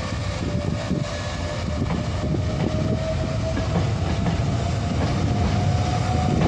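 Hankyu train running along the platform at Tonda Station, its wheels clattering rapidly over the rail joints with a heavy rumble. A single steady whine under the clatter slowly rises in pitch.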